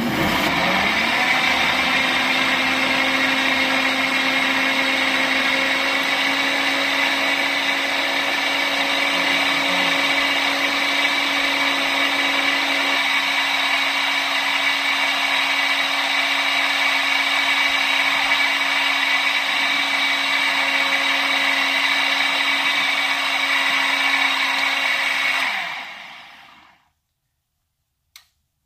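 Countertop blender blending a fruit-and-vegetable smoothie: the motor starts at once, runs steadily at one speed, then winds down and stops about three seconds before the end.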